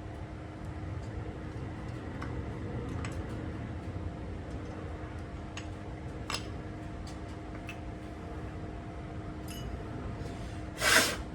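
Sparse light metallic clicks and clinks of brake hardware being handled, over a steady shop hum. Near the end comes one short, loud rush of noise.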